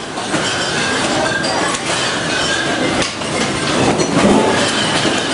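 Shelving and goods in a grocery store rattling and clattering without letup as the building shakes in a strong earthquake, with many knocks and clinks.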